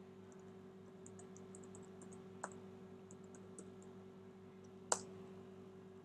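Computer keyboard being typed on: a run of light keystrokes, then one sharper key press just before the end, the Enter key that runs the typed command. A faint steady hum lies underneath.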